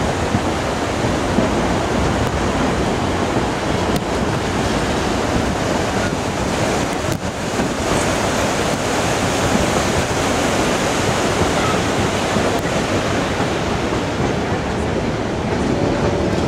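Steady rushing of a whitewater mountain creek tumbling over boulders, mixed with wind buffeting the microphone from the moving open railway car.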